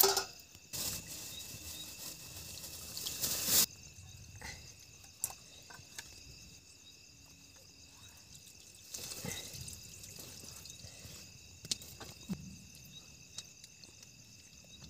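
Crickets chirring steadily and faintly in the night, with scattered small clicks of steel plates and utensils. A loud burst of hissing noise fills the first few seconds, and a weaker one comes about two-thirds of the way through.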